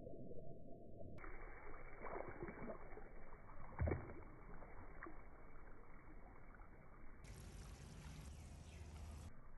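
Slowed-down, muffled sound of water from a burst water balloon splashing and running over concrete, with one low thud about four seconds in.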